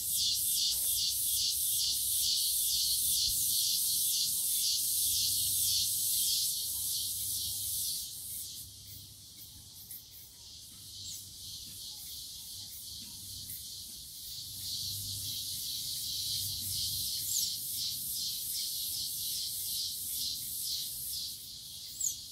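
Chorus of insects buzzing high-pitched in steady pulses, a few a second. It is loud at first, drops back for a few seconds midway, then builds again.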